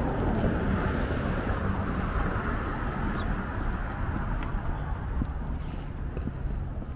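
A car passing on the street, its tyre and road noise swelling over the first couple of seconds and fading away, over a steady low rumble of wind on the microphone.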